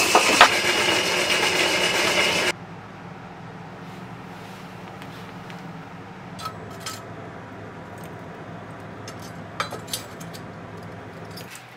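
Drum coffee roaster turning over a charcoal stove, the beans tumbling inside in a loud, dense rattle that cuts off suddenly after about two and a half seconds. Then a quiet low steady hum remains, with a few scattered light clicks and clinks.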